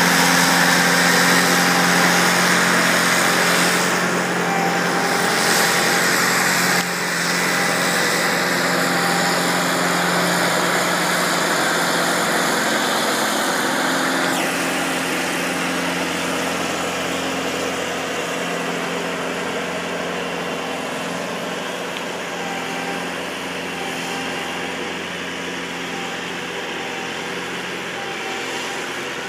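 Small articulated sidewalk tractor with a front snowblower running steadily: engine hum with the rush of the blower throwing snow. The sound slowly fades from about a third of the way in as the machine moves away.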